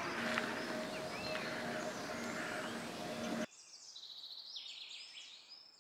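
Outdoor ambience with small birds chirping. About three and a half seconds in, the background noise drops away abruptly, leaving quieter, quick trilling birdsong.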